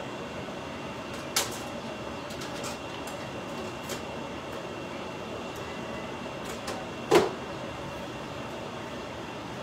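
Kitchen items being handled on a countertop: a sharp clack about a second and a half in, a louder knock about seven seconds in and a few lighter clicks, over a steady hum.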